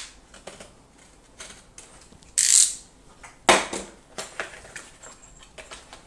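A small cardboard box being opened by hand: a short scraping hiss about two and a half seconds in as the seal is slit, then a sharp crack a second later as the lid tears free. Small taps and rustles of the cardboard run between them.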